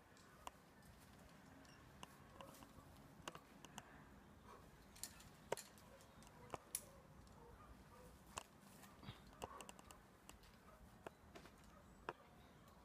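Near quiet, broken by faint, sharp clicks and taps at irregular intervals, roughly one a second, the loudest about five and a half seconds in.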